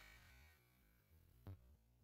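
Near silence, with one faint click about one and a half seconds in.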